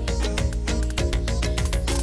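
Background music: a quick run of plucked-string notes over a steady bass line.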